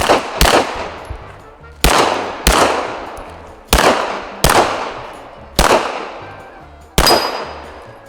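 M-Arms Kratos 9mm pistol firing eight shots, several in quick pairs, each crack followed by a reverberating tail that fades before the next.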